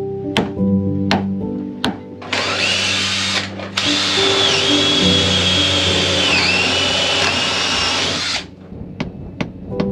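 Cordless drill running under load, drilling into the wooden hull: a short run, a brief stop, then a longer run of about five seconds whose whine dips in pitch twice as the bit bites. Acoustic guitar music plays throughout.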